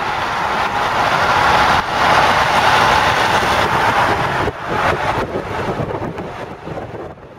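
Steady rushing wind and road noise of a moving vehicle, loud, with brief dips about two seconds and four and a half seconds in.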